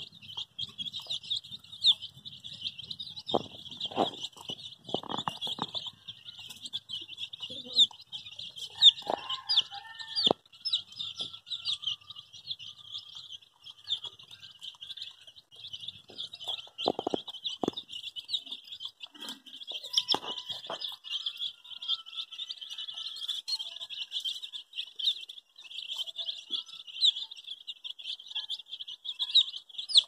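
A flock of baby chicks peeping continuously, many short high-pitched peeps overlapping, with a few brief knocks now and then.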